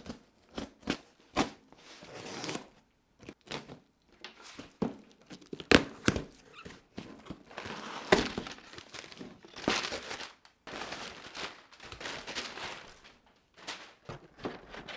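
A cardboard shipping box being opened by hand: tape torn, flaps pulled open with crinkling and rustling, and a string of sharp knocks and thunks as the box is handled.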